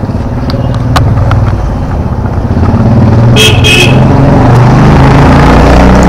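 Motorcycle engine running, louder from about halfway, with two short horn beeps about three and a half seconds in.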